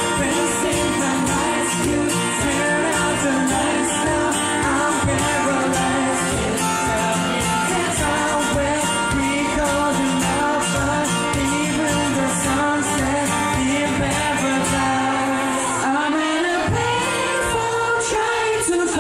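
Live band playing a pop song with singing over a steady beat, recorded on a phone. The sound cuts off suddenly at the end.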